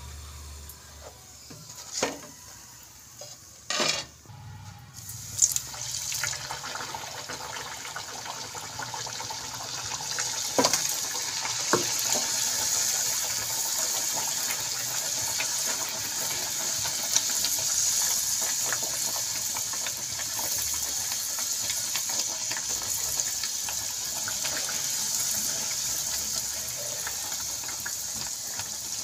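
Puris deep-frying in hot oil in a deep pan: a steady sizzling hiss that builds over the first several seconds and then holds. There are a few sharp knocks in the first six seconds.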